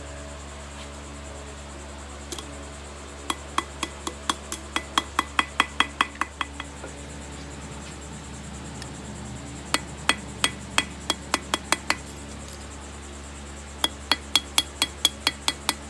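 Ball-peen hammer tapping lightly on the pivot rivet of a pair of scissors laid on an anvil, peening the rivet over to tighten a loose joint. The taps are sharp and metallic, about three or four a second, in three runs with short pauses between them.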